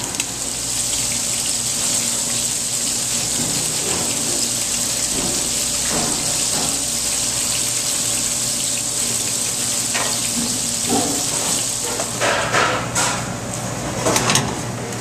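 Steady sizzling of a hot stainless pan on a gas range: a spice-crusted redfish fillet frying in oil, then cream poured into the hot pan. Near the end come a few short metallic clatters.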